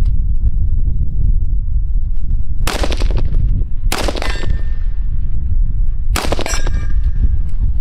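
Three 5.56 mm rifle shots from an AR-15 firing M855 green-tip rounds, each followed by a short metallic ring from the AR500 steel target being hit. The first two come about a second apart and the third about two seconds later.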